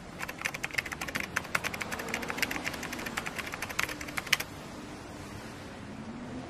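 Keyboard typing clicks, a quick irregular run of keystrokes that stops about four and a half seconds in, over the steady noise of street traffic.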